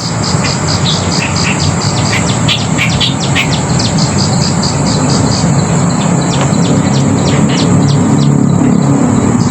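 A bird giving quick, repeated short chirps, several a second, over a steady high-pitched insect drone, with a steady low rumble underneath. The chirping thins out about six seconds in.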